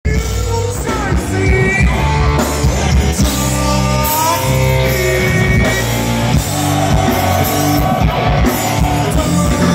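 Rock band playing loudly live, with electric guitars, bass, drums and a singing voice, recorded from within the crowd in front of the stage.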